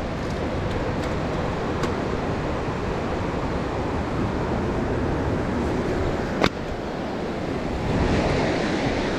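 Surf washing ashore with wind rumbling on the microphone, a little louder near the end as the water's edge comes close. A single sharp click about six and a half seconds in.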